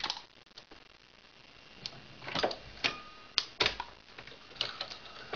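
Hornady 366 Auto shotshell reloading press clicking and knocking as it is worked to reload shotgun slug shells. The first second or so is quiet, then a scattering of sharp clicks and metal knocks follows.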